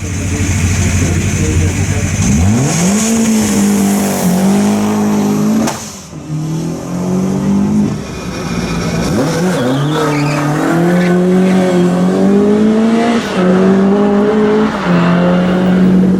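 Rally car engine running low, then accelerating hard about two seconds in. The pitch climbs and falls back again and again as it changes up through the gears, with a short break near the middle.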